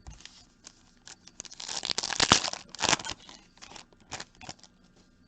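A trading-card pack's foil wrapper being torn open and crinkled, with scattered crackles that are densest and loudest in the middle.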